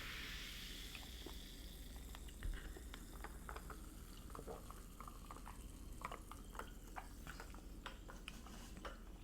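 Close-miked wet chewing: a string of small, sharp mouth clicks and smacks, several a second.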